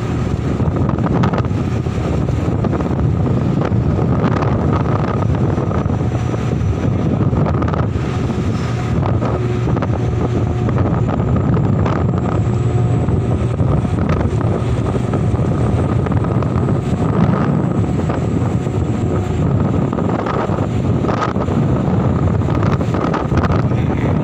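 Strong wind buffeting the microphone over the steady drone of heavy machinery running.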